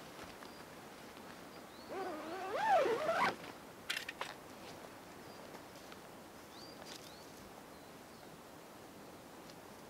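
A single animal call about two seconds in, lasting a little over a second and sliding up and down in pitch. A few sharp clicks follow just after, and faint short high chirps come and go.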